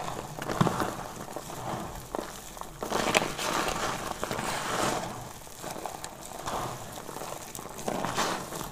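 Hands squeezing and stirring a pile of dry, crumbled soap pieces: the dry chunks crunch and rustle in several bursts, with sharp crackles.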